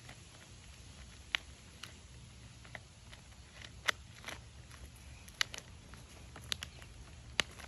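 Scattered sharp clicks and crackles, about nine in all, as granules of pool shock are poured into a plastic Coke bottle, over a faint steady background.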